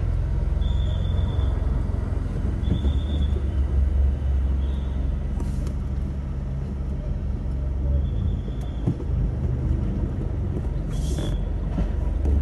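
Steady low rumble of trucks running through floodwater. Short high steady tones come about five times, spread through the sound, and there is a brief hiss a little before the end.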